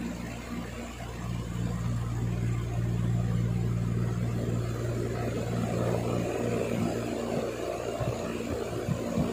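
A steady low mechanical hum, joined about a second and a half in by a louder engine-like rushing that holds, with a few soft low knocks near the end.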